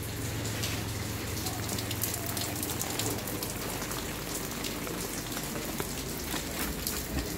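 Steady rain falling, with many scattered drop ticks over a constant hiss. A low steady hum sits under it for the first three seconds, then fades.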